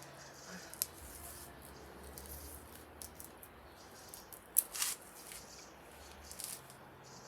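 Bananas being peeled by hand: soft tearing and handling of the tough peel, with a few sharp clicks, the loudest a pair just under five seconds in.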